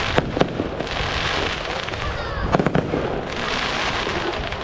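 Aerial firework shells bursting in a professional display: two sharp bangs close together right at the start and a quick cluster of bangs about two and a half seconds in, with a dense hiss between them.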